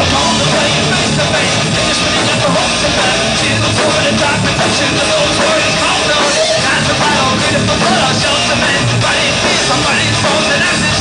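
A live heavy rock band playing loud: a male singer sings and shouts into a microphone over electric guitars and drums.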